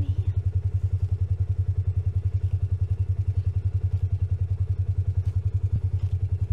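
An engine running steadily at an even idle, a low throb of about ten pulses a second with no change in speed.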